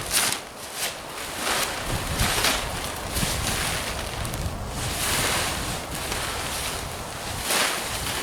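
Plastic silage sheet rustling and crackling in repeated swells as it is cut and pulled back off the clamp, with wind buffeting the microphone.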